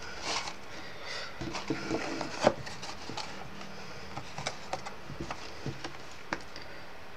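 Handling of stiff card while it is folded into shape: soft rustles and light taps on a wooden desk, with a sharper knock about two and a half seconds in.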